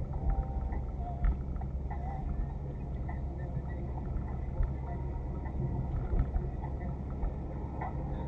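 Car driving, a steady low engine and road rumble with faint short tones and light clicks over it.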